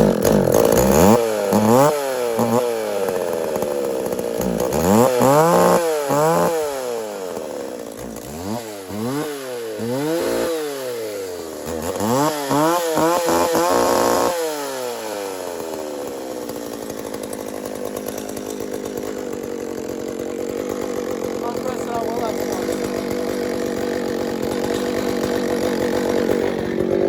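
McCulloch Pro Mac 610 two-stroke chainsaw running on a cold start after sitting unused for months: revved up and down in quick repeated blips for about the first fourteen seconds, then settling to a steady idle.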